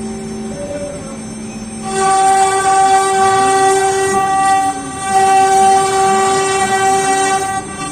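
CNC router spindle whining at a steady high pitch while it carves a door panel. It gets louder and fuller about two seconds in as the bit cuts, with brief dips as it moves between cuts. A lower sound rising and falling underneath comes from the machine's axis motors.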